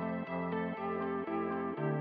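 Instrumental background music with evenly spaced notes, about four a second, and a change of chord shortly before the end.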